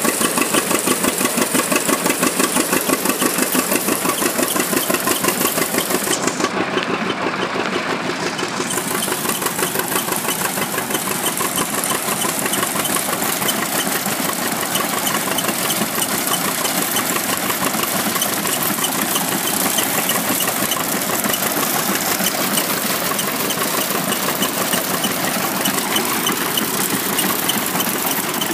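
28-inch IHC wooden threshing machine running, turned by a long flat drive belt from an engine, with a steady rhythmic chugging and mechanical clatter.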